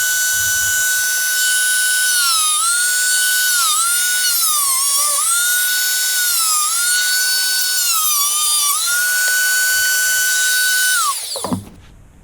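High-speed electric rotary cutting tool whining as it cuts a marked opening into the side panel of a motorcycle air box. Its pitch sags several times as the cutter bites under load and recovers in between. It is switched off a little before the end, its whine falling away as it spins down.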